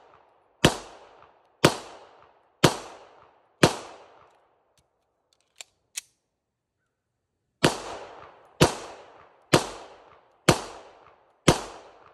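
Beretta 92X Performance 9 mm pistol fired in steady slow strings, about one shot a second, each crack followed by a short echo: four shots, a pause with two sharp clicks as the pistol is handled, then five more shots.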